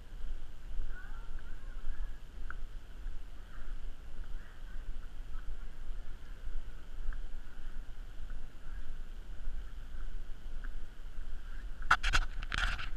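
Uneven low rumble of wind and movement on a body-worn GoPro's microphone during a walk, with faint high chirps. Near the end there is a short burst of sharp clattering and rustling.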